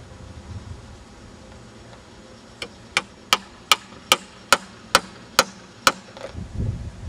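Hammer nailing a wooden fireworks mortar rack: about nine sharp strikes in an even run of roughly two and a half a second, starting a little before halfway, followed by a low rumble near the end.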